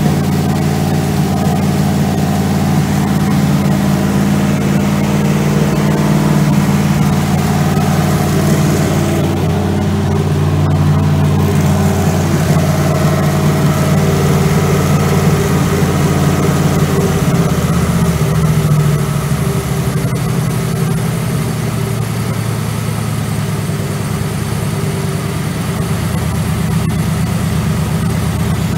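Turbocharged 215 cubic-inch aluminium V8 of a 1963 Oldsmobile Jetfire running steadily on an engine stand during camshaft break-in. About two-thirds of the way through, its speed drops a little and it runs slightly quieter.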